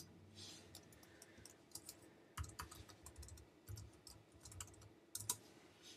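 Faint typing on a computer keyboard: short, irregular key clicks, several a second, with a few louder taps now and then.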